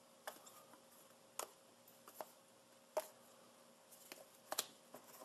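Faint, scattered clicks and taps of stiff punched-cardboard board game standees knocking together as they are handled and gathered into a stack, about half a dozen over a few seconds.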